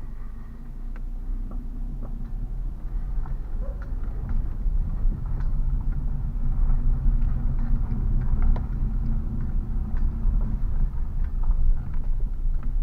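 Car being driven over uneven road, heard from inside the cabin: steady low rumble of tyres and engine with scattered light knocks and clicks from the front suspension, where a worn ball joint knocks intermittently.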